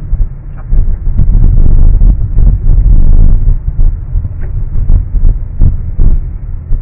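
Car driving along a road, heard from inside the cabin: a loud, uneven low rumble of road and wind noise.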